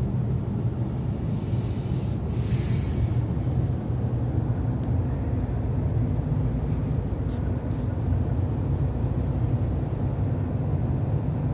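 Steady low rumble of a car driving through a road tunnel, heard from inside the cabin: tyre and engine noise, with a brief hiss about two seconds in.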